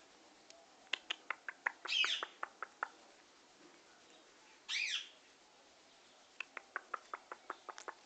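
Blue Indian ringneck parakeet making runs of quick clicks, about eight a second, with two short calls, about two seconds and about five seconds in. The clicking goes with its head-bobbing, wing-drooping courtship display.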